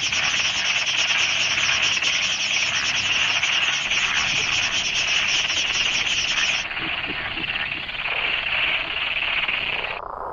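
Dense frog chorus, a loud continuous rasping made of many rapid pulses. The high end is cut away abruptly in steps, once about six and a half seconds in and again near the end, leaving a duller, lower rasp.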